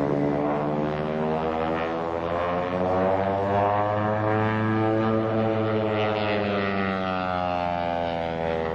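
Stearman biplane's radial engine and propeller running hard through an aerobatic manoeuvre. The engine note rises in pitch to a peak about halfway through, then falls away again.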